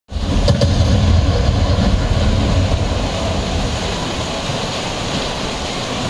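Whitewater rushing steadily through the concrete channel of a river rapids ride, with a low rumble that is strongest in the first few seconds.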